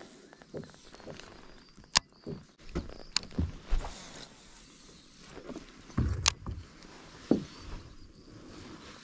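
Fishing gear being handled in a plastic kayak: a baitcasting rod and reel making a few sharp clicks and dull knocks against the boat, spread irregularly over several seconds.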